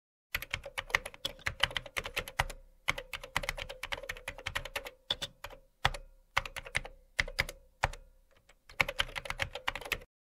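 Computer keyboard typing: rapid runs of key clicks broken by short pauses.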